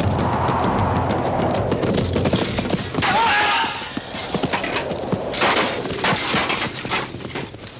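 Horses galloping in a melee, hooves clattering, with thuds and crashes of riders and weapons, and a short wavering high cry about three seconds in.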